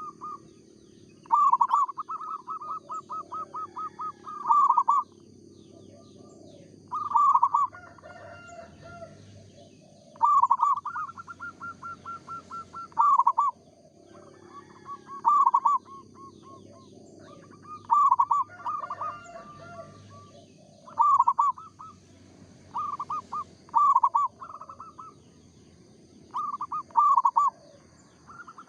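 Zebra dove (perkutut) singing its cooing song over and over: loud phrases of rapid stuttering notes, one about every three seconds.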